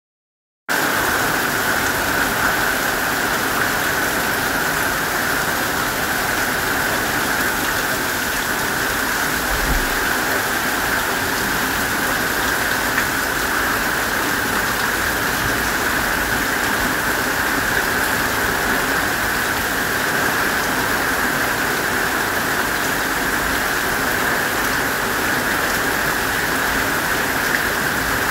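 Heavy monsoon rain pouring steadily. The sound cuts in abruptly just under a second in.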